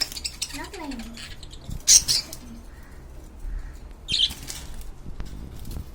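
Pet birds giving short, high-pitched chirps and squawks, the loudest about two seconds in and another about four seconds in.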